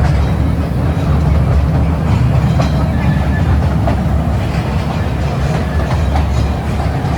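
Toy train running along its track: a steady low rumble with occasional wheel clicks from the rails.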